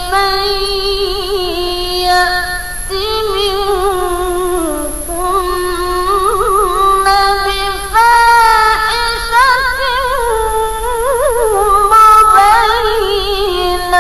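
A woman's voice reciting the Qur'an in melodic tajwid style, drawing out long ornamented notes with a wavering vibrato. About eight seconds in, the voice steps up to a higher, louder phrase.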